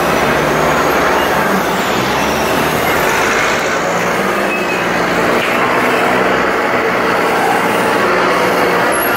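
A river boat's engine running steadily, with a low hum under a dense wash of churning water.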